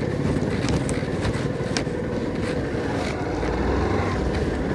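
Motorcycle engine running steadily while riding, with wind noise on the microphone and a few short sharp ticks and rattles.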